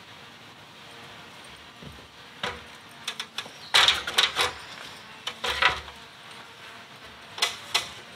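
Knocks, clanks and scrapes as a bagged rooftop awning is carried up an aluminium stepladder and heaved against a cargo trailer's roof rack. A cluster of them comes a few seconds in, then two sharp knocks near the end.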